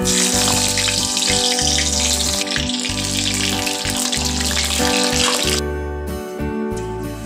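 Besan-battered pieces sizzling in hot oil in a kadai, the hiss starting sharply as they go in and dropping away about five and a half seconds in. Background music plays under it.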